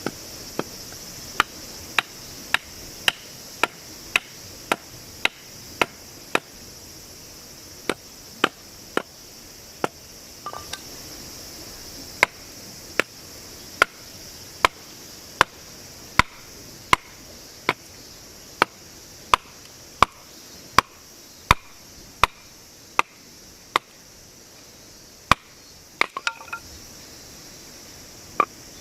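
Firewood being chopped: a long run of sharp, even strokes, roughly one every half second to second, with short breaks about seven and ten seconds in.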